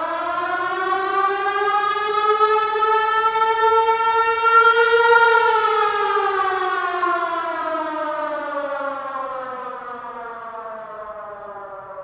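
A single long siren wail that rises slowly in pitch to a peak about five seconds in, then falls and fades away.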